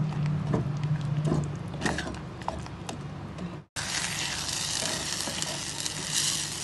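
Spatula stirring and scraping thick dal in a clay pot, with scattered scrapes and clicks as the cooking food sizzles. About two-thirds of the way through the sound cuts out for a moment and comes back as a steadier sizzling hiss.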